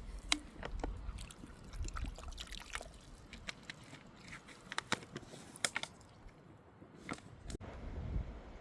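A dog crunching and chewing a stale treat: irregular crisp clicks and crunches, with a low rumble of wind on the microphone.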